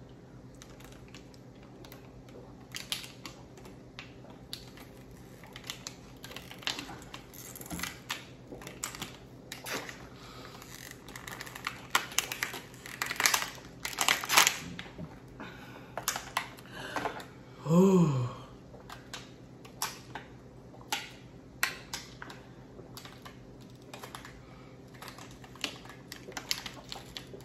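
Thin plastic water bottles crinkling and crackling in irregular clicks as they are squeezed while the water is gulped down quickly, the crackling thickest about halfway through. A short vocal sound from one of the drinkers comes about two-thirds of the way in.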